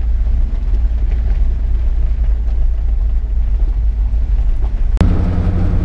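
Road and engine noise inside a Ford truck's cab while driving: a steady low rumble. About five seconds in it breaks off sharply and gives way to a steadier, higher hum.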